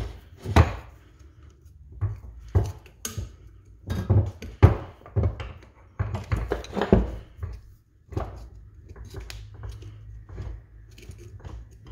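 A small screwdriver prying a snap ring out of its groove on a Fox shock body, with irregular sharp metal clicks and scrapes of steel on steel. The clicks are loudest in the first eight seconds and fainter near the end.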